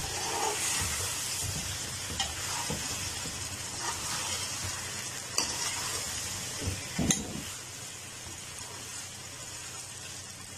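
Sliced taro root (arbi) frying in masala and soy sauce in a metal pot: a steady sizzle as a spatula stirs it, with a few sharp clicks of the spatula against the pot.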